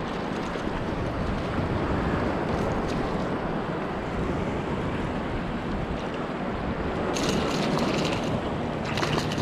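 Wind buffeting the microphone over the steady wash of surf around a wader standing in the water, with brief crackles about seven seconds in and again near the end.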